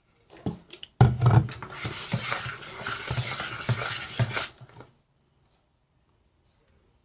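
A fork stirring sticky slime in a bowl: a few clicks, then about three and a half seconds of steady scraping and clinking, which stops abruptly near the end.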